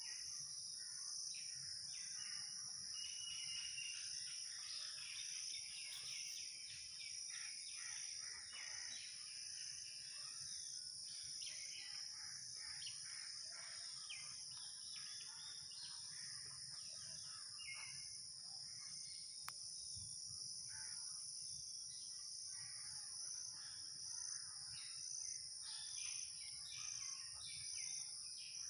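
Forest ambience: a steady, high-pitched insect chorus drones throughout, with many short bird calls and chirps scattered over it.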